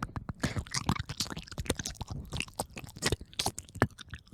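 Rapid, irregular clicks and crunches close to the microphone, like chewing or mouth noises.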